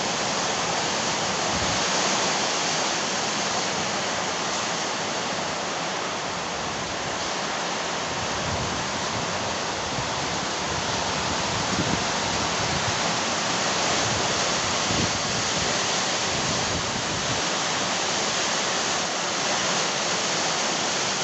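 Heavy rain pouring down steadily, a dense, even hiss, with uneven low rumbles of wind gusting through it.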